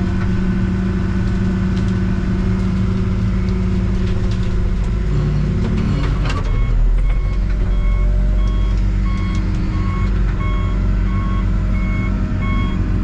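Backhoe's diesel engine running steadily, heard from inside the cab; its pitch shifts about halfway through as the machine changes direction. The backup alarm then starts beeping at a steady pace, about once a second, as the backhoe reverses.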